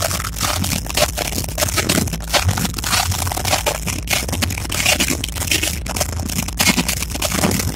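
Dense, distorted noise from a crowded dance floor, full of irregular clicks, with no clear music or voices standing out.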